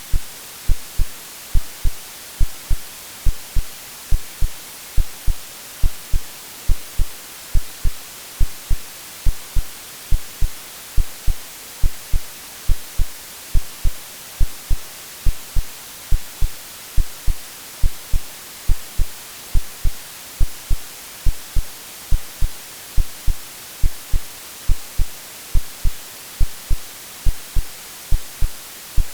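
Synthetic heartbeat, a steady lub-dub of low double thumps a little more than once a second, over a constant hiss of white noise: AI-generated womb-like sound for settling a baby to sleep.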